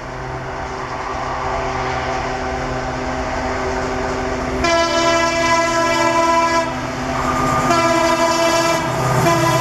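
An Indian Railways diesel locomotive hauling an express approaches, its engine drone growing louder, and sounds its horn twice: one long blast starting about halfway through and a second one near the end that is still going when the clip ends.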